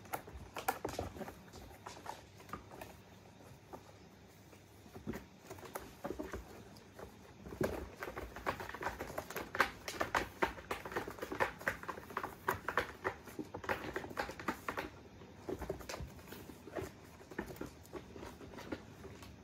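Kittens scrambling and play-fighting over carpeted scratcher ramps: a rapid patter of paws and claws scrabbling on the textured surface, busiest and loudest in the middle stretch, when they climb over the ramps.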